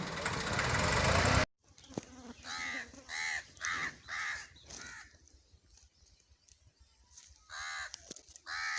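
A loud, even rushing noise cuts off abruptly about a second and a half in. Then a crow caws five times in quick succession, and twice more near the end.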